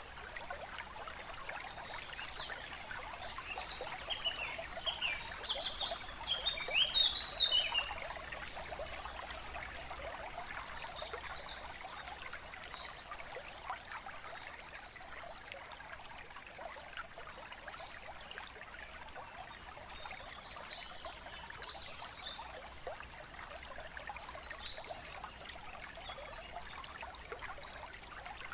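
Running water trickling steadily, with bird chirps that are busiest and loudest about four to eight seconds in.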